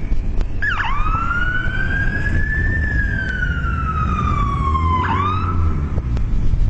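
A siren wail: one tone slowly rising and then falling over about four seconds. It plays over a steady low rumble of wind on the microphone.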